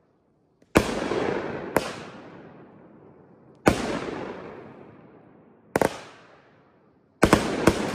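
Kripton (Pyro Diablo) King Gorilla 9-shot consumer fireworks cake firing. Each shell breaks with a sharp bang followed by a long fading tail, a shot every second or two, then three bangs in quick succession near the end.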